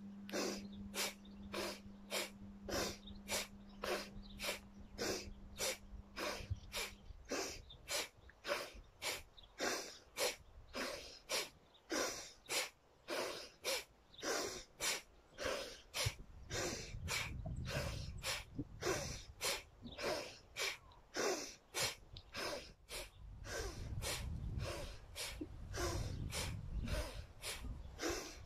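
Rapid, forceful breathing through the nose in an even rhythm, about two breaths a second, inhales and exhales alternating without pause: a Kundalini Yoga breathing exercise.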